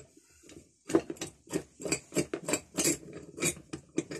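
Small hammer tapping a steel punch to drive a pin out of a cast-iron vise slide: a run of light, quick metallic taps, about three or four a second, starting about a second in.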